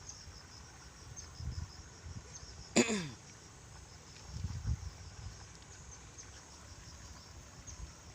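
Insects chirping steadily in high, faint pulses, with one short sharp sound that drops quickly in pitch about three seconds in and a few soft low bumps.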